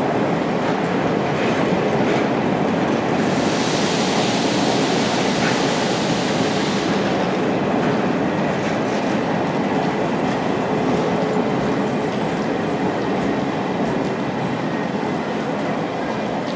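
A train of old-type passenger coaches behind steam locomotive D51 498 rolls out of the station in a steady rumble of wheels on rail. About three seconds in, a high hiss rises over it for about four seconds.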